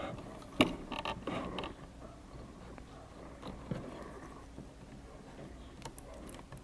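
Small clicks and scrapes of fingers working a plastic wire connector loose from an inverter's circuit board: a quick cluster of sharp clicks within the first two seconds, then a few scattered quieter ones.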